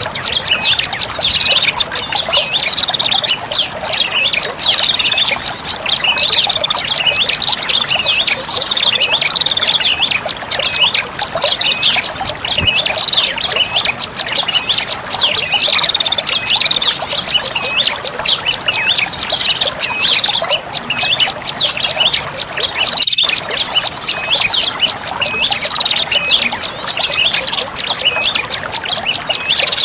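Prenjak lumut songbird calling: a fast, unbroken series of sharp, high, hooked chirps, several a second, over a steady rushing background like running water. Used as a lure call to attract the bird. There is a split-second dropout about two-thirds of the way through.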